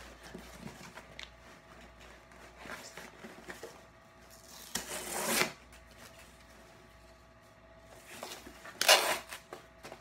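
A shipping bag being rustled and ripped open by hand: small rustles, a longer tear about five seconds in, and the loudest rip near the end.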